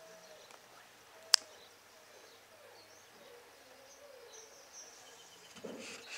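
Faint outdoor ambience with a few faint high bird chirps. A single sharp click about a second in, and a brief rustle near the end.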